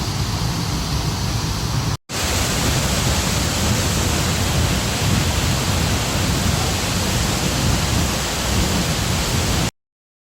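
Steady rushing of a waterfall, heavy in the low end, broken by a brief cut about two seconds in and stopping abruptly near the end.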